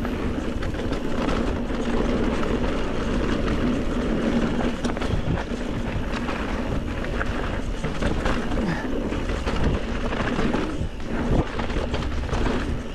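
Electric mountain bike riding down dirt singletrack: steady tyre and trail noise, with a few short knocks from bumps along the way.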